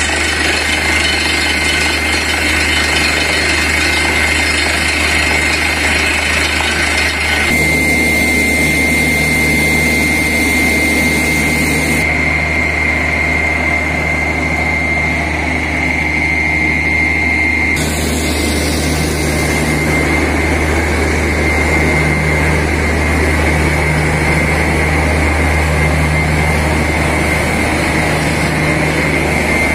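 Truck-mounted borewell drilling rig running, its engine and machinery making a loud, steady drone with a steady high whine over it.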